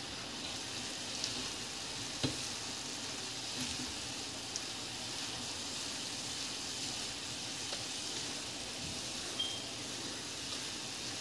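Spaghetti and vegetables sizzling steadily in a frying pan while being stirred with a spatula, with a few light taps of the spatula against the pan.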